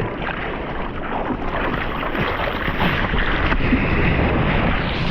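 Steady rushing of surf and moving water, with wind buffeting the microphone as a low rumble.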